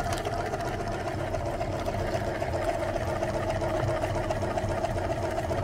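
Electric meat grinder's motor running steadily with a constant hum while ice cream bars are forced down onto its auger.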